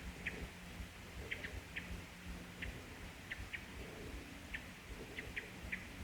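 Short, sharp chip notes from a small bird, about a dozen at irregular intervals, over a faint low rumble.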